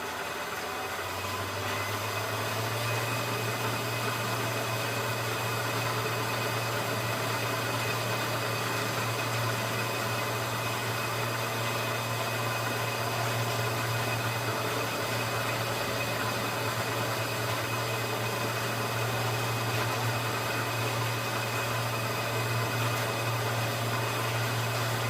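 Bridgeport milling machine running steadily over a hiss, with a low hum that comes in about a second in and then holds.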